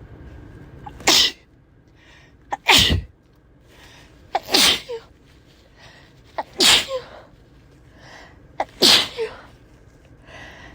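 A person in a fit of uncontrollable sneezing: five loud sneezes about two seconds apart, each with a short sharp catch of breath just before it.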